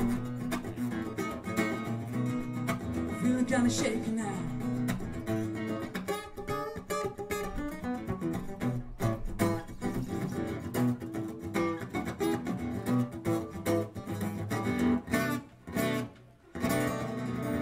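Solo acoustic guitar playing a funky, bluesy groove, strummed with sharp percussive strokes. The playing breaks off briefly near the end and comes back in.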